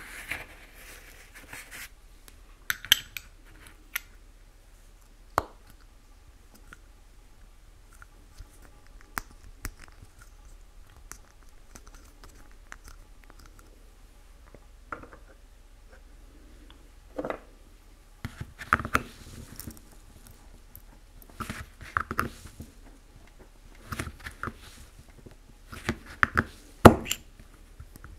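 Hands handling a small metal tin of model enamel paint and painting things on a cardboard-covered table: scattered small clicks, taps and knocks, a few at first and then a busier cluster in the last ten seconds.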